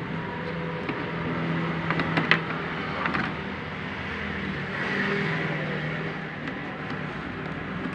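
Background motor-vehicle noise: an engine running steadily, with a swell that rises and fades about five seconds in, like a vehicle passing. A few light clicks and knocks come about two to three seconds in.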